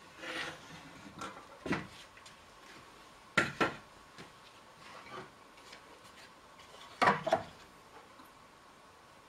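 Knocks and clatter of wooden pieces being handled and set down on a workbench: a few scattered knocks, with a loud pair about three and a half seconds in and another loud cluster about seven seconds in.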